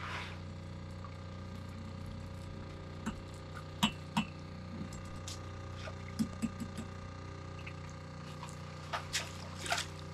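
Scattered knocks and clatters of fishing gear against a small boat as a fisherman hauls a net trap up by its rope, over a steady low hum. The knocks cluster a little before the middle and again near the end.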